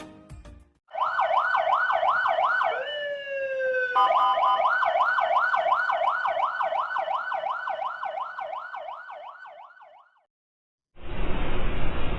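Electronic emergency-vehicle siren in yelp mode, rapidly sweeping up and down about three times a second. About three seconds in it briefly drops into one slower falling tone, then the fast yelp resumes and fades out. After a second of silence, a loud steady rushing noise starts near the end.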